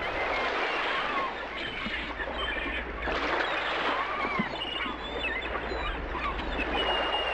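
Birds calling in short chirps over a steady rushing noise.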